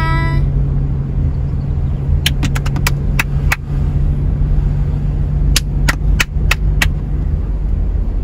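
Car driving, heard from inside the cabin: a steady low engine and road rumble with a low hum that stops about seven seconds in. Two runs of sharp clicks come through it, one about two to three seconds in and another about six seconds in.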